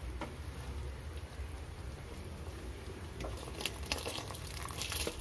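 Watery vegetable masala at a boil in an open metal pot, a steady bubbling and spattering, with a few faint clicks in the second half. The cooking water is at the boil, ready for the rice to go in.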